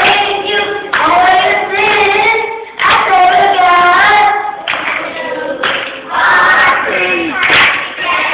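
Children's choir singing in phrases of held notes, with some hand clapping.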